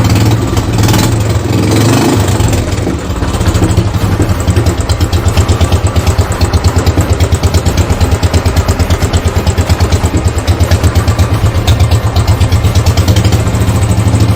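Royal Enfield Standard 500's single-cylinder engine running, a little uneven at first and then settling into a steady, even idle beat.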